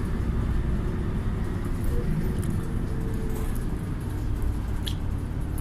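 Steady low rumble of a moving vehicle, with a brief sharp click near the end.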